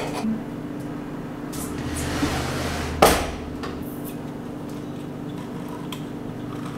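A single sharp knock about three seconds in, after a short rustle. Then a hand-held can opener clicks faintly as it is cranked around a can of olives.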